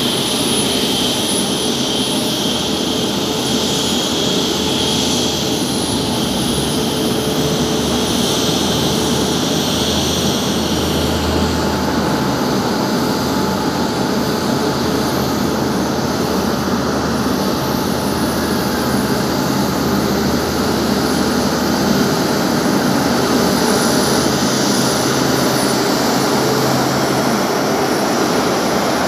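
Airbus A350-900's Rolls-Royce Trent XWB turbofans running at low taxi thrust as the airliner taxis past, a steady jet roar. A high whine fades out about a third of the way in.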